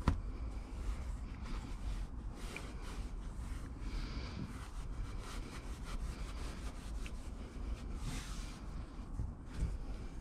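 Hands rubbing and smoothing stretch carpet over the edge of a plywood panel: soft, irregular scuffing of fabric on wood over a low steady rumble, opening with one sharp click.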